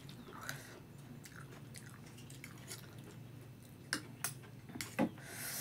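A person chewing with their mouth close to the microphone, with soft wet mouth noises, including a bitten round dalle khursani chili. A few sharp clicks come in the second half, and a brief hiss comes near the end.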